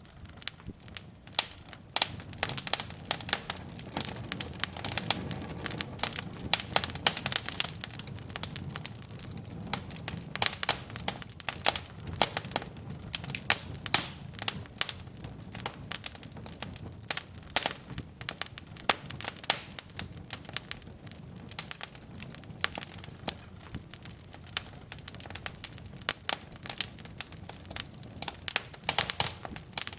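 Wood fire burning in a fireplace: logs crackling and popping in quick, irregular snaps over a low, steady rumble of flame.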